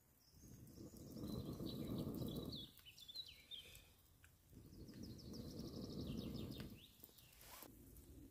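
A person blowing on the embers of a small campfire, two long breaths of about two seconds each, with birds chirping in the background.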